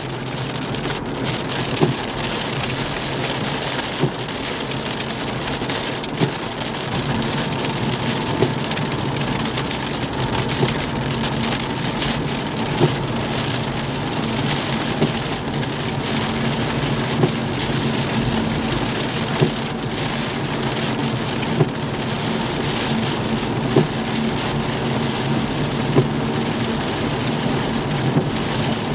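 Rain hitting a car's windshield, heard inside the moving car over steady tyre and road drone, with a short knock from the windshield wipers at the end of each sweep about every two seconds.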